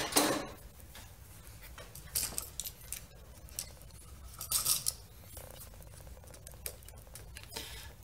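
Needle-nose pliers clicking and scraping on copper wire as it is bent and wrapped around a light switch's terminal screw, in a few short bursts.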